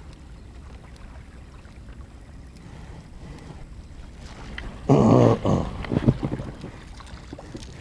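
Steady wind and water noise around a small boat. About five seconds in comes a loud half-second rush of noise, followed by a few sharp knocks.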